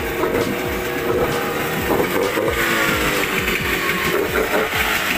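Used Yamaha 15 hp outboard motor running in neutral with its lower unit in a test barrel of water. About two and a half seconds in, its pitch rises as it is revved up a little, then holds steady.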